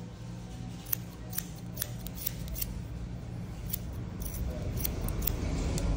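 Barber's hair-cutting scissors snipping hair held on a comb: about ten short, crisp snips at an uneven pace, over a low steady hum.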